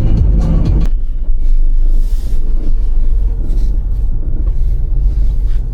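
Steady low road rumble of a micro camper van being driven, heard from inside the cabin. The end of the background music cuts off about a second in.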